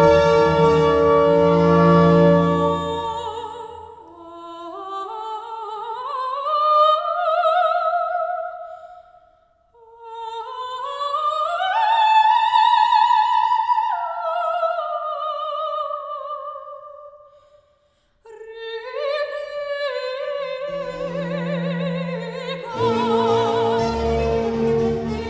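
Soprano singing an opera aria with a period-instrument orchestra. After about three seconds the orchestra drops out and she sings on alone, a long passage with vibrato that climbs and falls in pitch, broken by two short breath pauses. The orchestra comes back in near the end.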